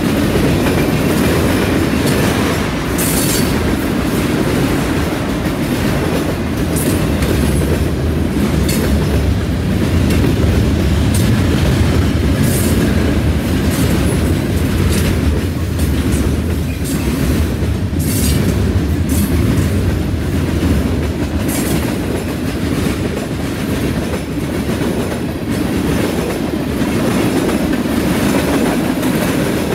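Freight cars of a passing train rolling by: a steady low rumble of steel wheels on the rails, with a clickety-clack as the wheels cross rail joints and a few sharp, high clicks from the wheels.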